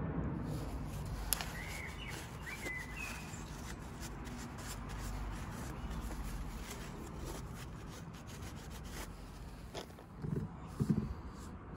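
Steady outdoor background noise with a few short bird chirps a couple of seconds in, and two dull knocks near the end.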